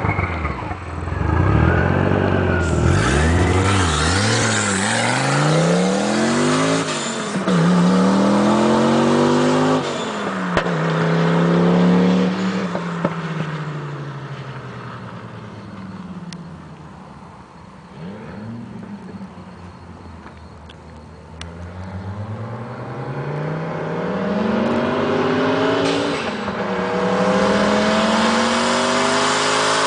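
Turbocharged 20-valve inline-five of an Audi 80 quattro, running 12 psi boost, accelerating hard through the gears. Its pitch climbs and drops back at each of four quick shifts, then fades as the car pulls away. Near the end it grows loud again with two more rising pulls through the gears.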